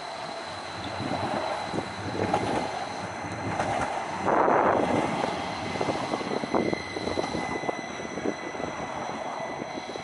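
NJ Transit Kinki Sharyo light rail trams running on street track, a steady rush with many short clicks from the wheels on the rails. The sound swells briefly louder about four seconds in.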